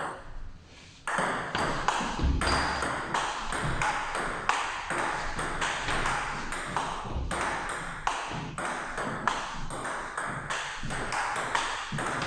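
Table tennis rally: the ball clicking sharply, several times a second, off the bats and the table, starting about a second in.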